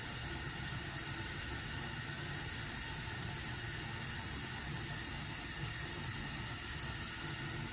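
Hot water running steadily from a kitchen sink sprayer into the plastic drum of a Frankford Arsenal rotary tumbler loaded with 9mm brass casings, filling the drum for wet tumbling.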